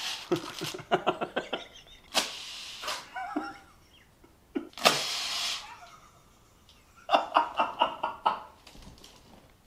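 A man laughing hard with a paper party blower in his mouth: fits of short chuckles broken by long breathy blows, and a higher run of giggles about seven seconds in.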